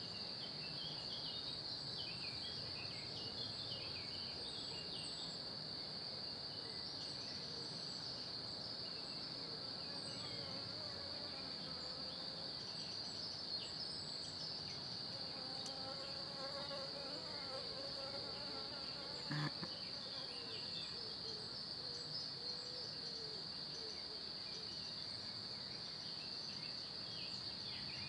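Outdoor ambience with a steady high-pitched whine and faint scattered chirps. A flying insect buzzes past in the middle, its drone rising and falling in pitch, and there is a single sharp click about two-thirds of the way in.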